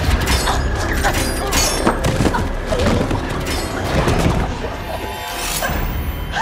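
Horror film sound mix: dramatic music under a string of sharp crashes and thuds, with vocal sounds mixed in.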